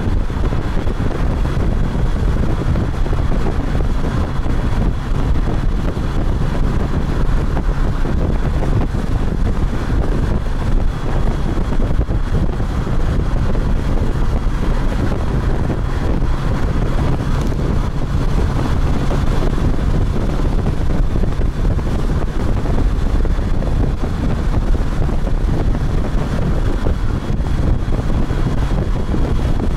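Steady, loud wind rush on the microphone of a motorcycle riding at speed, with a low steady drone of engine and road beneath it.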